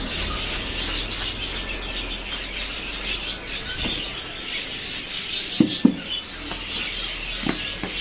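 Powdered supplement mix sliding and rubbing inside a closed plastic bucket as it is tipped and shaken to blend it: a continuous rough hiss. A little past halfway come a couple of sharp clicks, and another near the end, as the snap-on lid is worked off.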